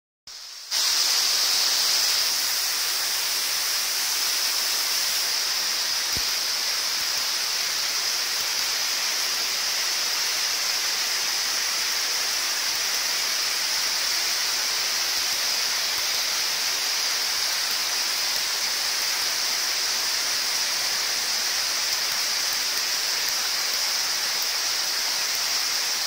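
Waterfall: water cascading down a rock face into a pool, a steady hissing rush that starts about half a second in and holds level.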